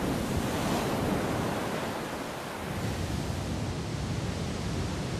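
Whitewater of a mountain torrent rushing and splashing through a rock gorge, a steady rush of water that eases slightly about two and a half seconds in.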